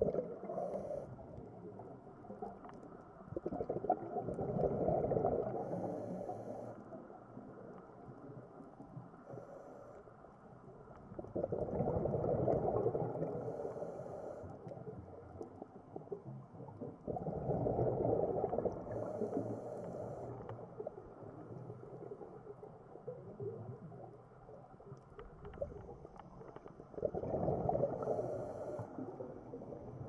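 Scuba diver breathing through a regulator underwater: a bubbling rush of exhaled air swells up about every six to seven seconds, with short high hisses between.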